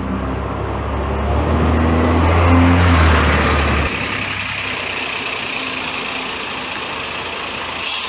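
Single-deck diesel bus engine running as the bus passes close by and pulls away: a low drone that builds to its loudest about two and a half to three seconds in, then drops off about four seconds in. After that comes a steadier, hissier noise of another shuttle bus approaching.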